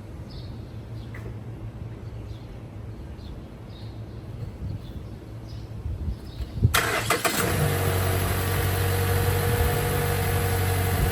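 2014 Mazda CX-5's four-cylinder petrol engine started about two-thirds of the way in: a brief crank, then it catches and settles into a steady idle. Before the start there is only a faint low hum.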